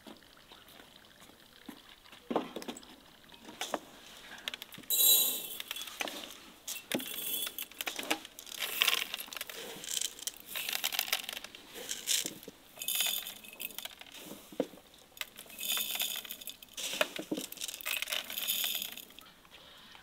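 Glass jars clinking and knocking as they are handled and set down on a wooden table, with dried corn kernels and other grains rattling inside them in a series of short rattling rushes.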